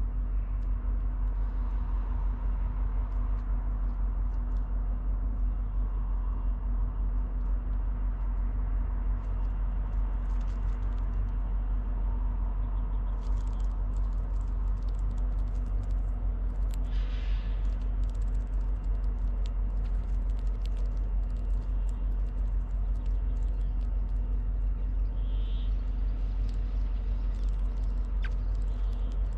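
Steady low outdoor rumble with scattered faint ticks, and two short bird calls, one about halfway through and one near the end.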